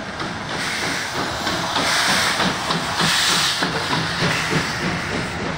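PKP Pt47 steam locomotive moving past close by, hissing steam. The hiss is loudest in the middle, over the rumble of the train rolling along the rails.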